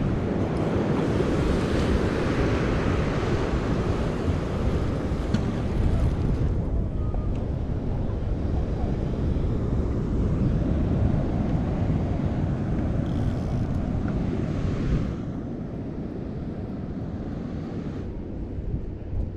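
Wind buffeting the microphone over the wash of ocean surf, a steady rumbling noise that eases about fifteen seconds in.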